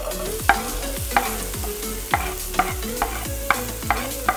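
Sliced shallots, garlic and chilli sizzling in a non-stick wok as a wooden spatula stirs them, knocking and scraping against the pan about twice a second.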